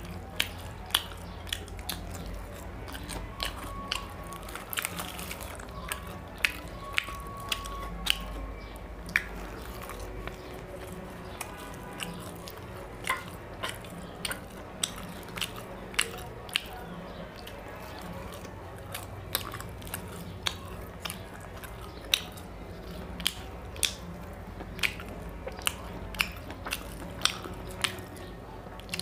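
Close-miked eating sounds from a man chewing mutton curry and luchi, with sharp wet mouth clicks at irregular intervals, roughly one every second or so, over a low steady hum.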